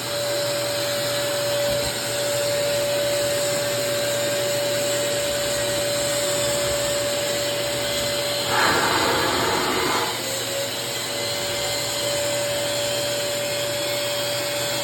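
WEN electric drywall sander running with its dust vacuum attached while sanding a wall: a steady motor whine over rushing suction noise. A little past the middle it turns louder and rougher for about a second and a half, the whine dropping out and sliding back up, as the pad bears harder on the wall.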